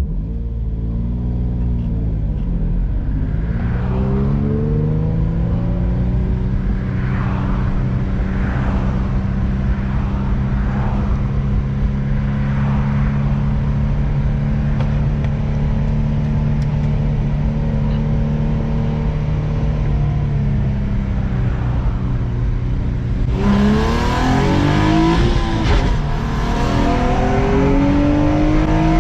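Infiniti G35's V6 engine under way: the revs dip and climb again, then hold steady at cruise for about fifteen seconds. They ease off and then rise hard under acceleration about 24 seconds in, climbing with a louder, rougher edge.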